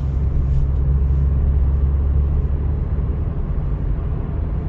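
Steady low rumble of engine and road noise heard from inside a moving vehicle, easing slightly about halfway through.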